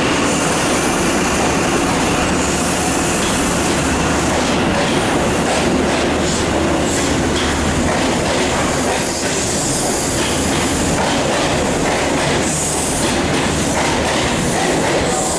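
High Speed Train (InterCity 125) Mark 3 coaches rolling past as the train pulls out, wheels clattering over rail joints under a steady loud rumble.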